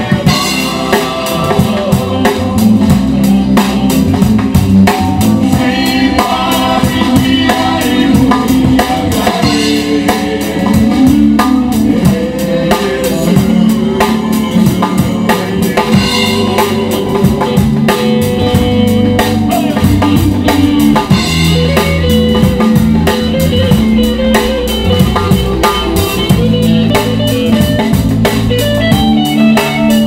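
Live band playing a song: drum kit, bass guitar and electric guitar in a steady groove.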